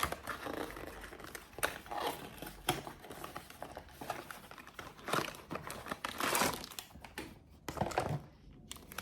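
Blind-box packaging crinkling and tearing as it is opened by hand, in irregular rustles that are loudest about two-thirds of the way in.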